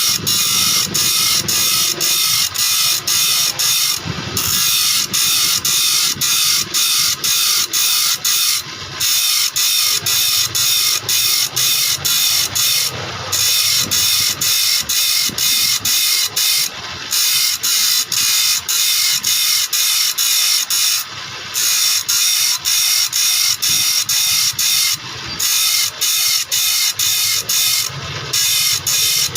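Saw teeth being sharpened with rapid, evenly repeated rasping strokes, about two to three a second. The strokes stop for a moment every four seconds or so.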